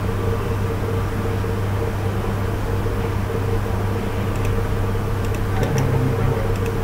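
Steady low hum of recording noise, with a second steady tone above it. A few faint mouse clicks come in the second half.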